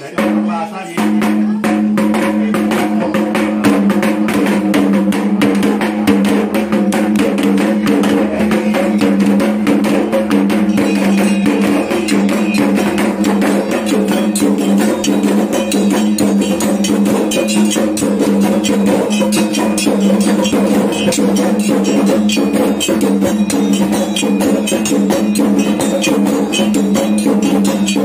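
Kendang drums beaten in a fast, even beat for Dayak belian healing-ritual music, over a steady ringing tone, starting about a second in.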